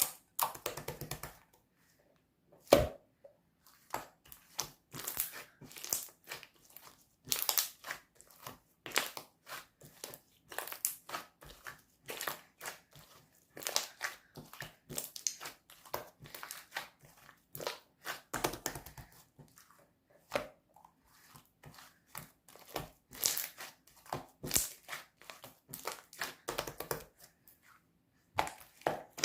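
Slime being squeezed and pressed by hand, giving irregular crinkly crackles and small pops, with one louder snap about three seconds in.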